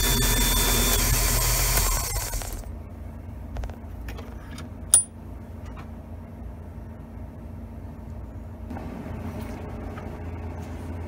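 Vintage bench valve refacing machine running, its motor and grinding wheel going steadily, then switched off about two seconds in and winding down. After that come light handling clicks on the machine and one sharp metallic click about halfway through.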